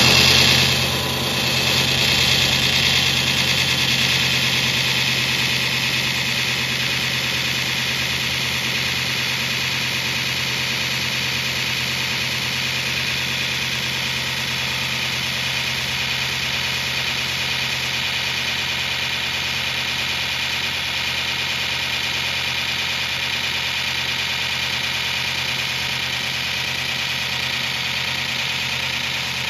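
Fein Grit GI150 belt grinder with GIC centerless attachment grinding a thick-walled 3-inch steel tube: a steady motor hum under the hiss of the abrasive belt on the rotating tube as it feeds through. It is a little louder for the first second or two, then holds level.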